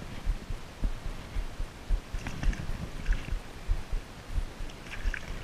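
Wind buffeting the microphone in irregular low gusts, over water lapping at the shore's edge.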